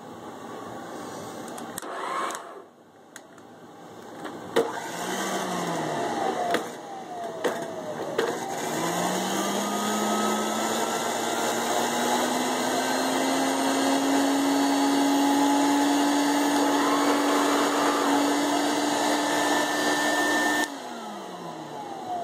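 Discovery II upright vacuum cleaner motor with motor trouble: after a few clicks and a short start that dies away, it is switched on again and its hum climbs slowly in pitch over several seconds before holding steady. Near the end it is switched off and winds down with a falling hum.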